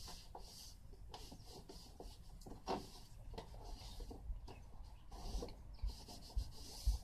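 Hands working at an air conditioner's casing: quiet rubbing and scraping with small clicks and knocks, and a few dull thumps near the end.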